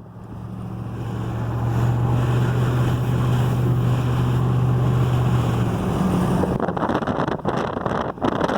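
A vehicle driving, heard from inside: a steady engine hum with road and wind noise. It swells over the first two seconds and the hum shifts about six and a half seconds in.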